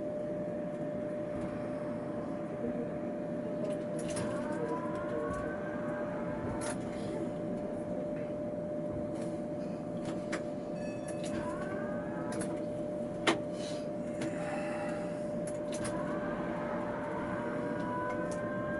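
Tatra K2P tram heard from inside the cab: a steady whining hum, with three rising whines from the electric traction equipment as the tram pulls forward. One sharp click sounds a little past the middle.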